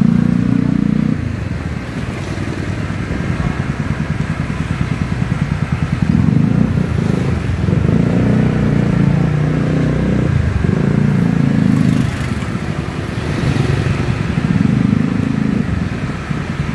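Motorcycle taxi's engine running under the passenger, swelling louder several times and easing off in between.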